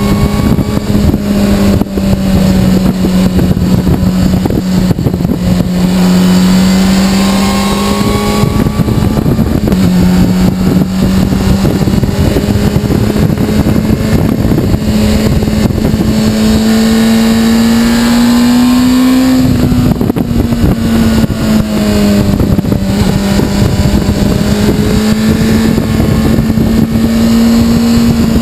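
Honda CBR600RR's inline-four engine running steadily at road speed, with wind rushing past. Its pitch creeps upward, steps up about ten seconds in as the bike is shifted down from fifth to fourth, drops briefly about two-thirds of the way through, then climbs again.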